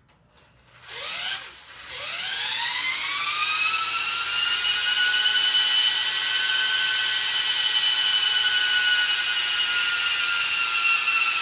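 Power drill spinning a salvaged washing-machine motor as a generator into a 48-volt battery bank. After a short burst about a second in, it winds up into a steady whine and runs under the charging load, its pitch sagging slightly near the end. The drill is straining.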